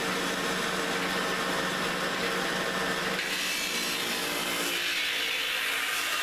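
Homemade belt-driven dowel-rounding cutter, run by an electric motor, shaving a cedar stick as it is fed through to turn it round. About three seconds in, the low hum gives way to a higher, steady shaving hiss as the stick goes into the cutter.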